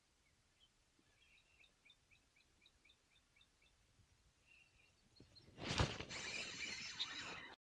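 A small bird chirping faintly in a quick run of short notes. A few seconds later comes a sudden loud knock, followed by about two seconds of rushing noise that stops abruptly.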